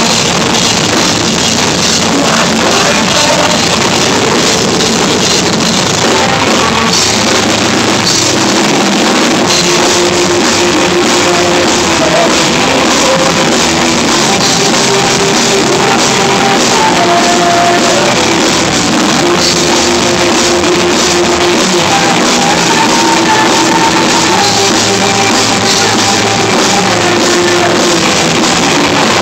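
Live rock band playing loudly: electric guitar, bass guitar and drum kit together at a steady, driving pace.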